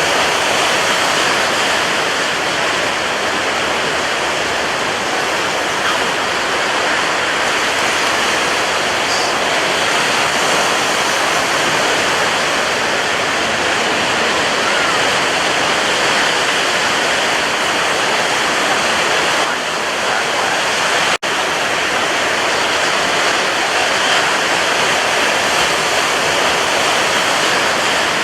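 Sea waves: a steady, continuous rush of surf with no distinct single breakers, broken once by a split-second gap about two-thirds of the way through.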